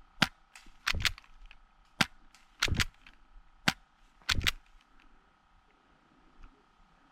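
Airsoft M1911 'Government' pistols shooting: a sharp single crack, then a double crack about half a second later, repeated three times in quick succession.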